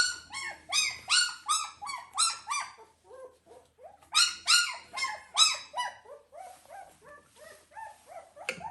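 Newborn puppy crying: a run of high, squealing cries, about three a second, each rising then falling in pitch. They pause briefly about three seconds in, come back loud, then turn softer and lower toward the end.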